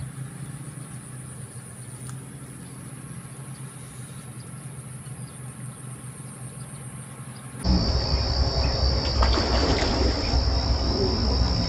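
Insects trilling steadily in the background over a low hum. About two-thirds of the way in, the sound switches abruptly to a louder low rumble with a steady high buzz.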